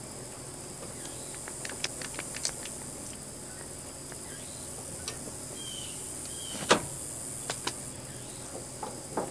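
Scattered light clicks and knocks of metal parts and tools being handled while a riding mower's front wheel is worked on at its steering spindle, a small cluster early, then single knocks, the sharpest about two-thirds of the way through, over a steady high hiss.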